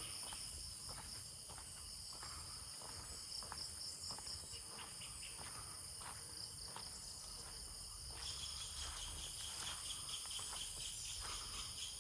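A chorus of insects keeps up a steady high-pitched trilling. About two-thirds of the way through, a second, pulsing insect call joins at a lower pitch, over scattered light clicks.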